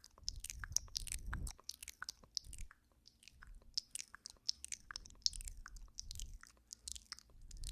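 ASMR mouth sounds close on a binaural microphone: ear-nibbling and kisses, a dense, irregular run of wet clicks and lip smacks. Soft low swells come and go beneath them.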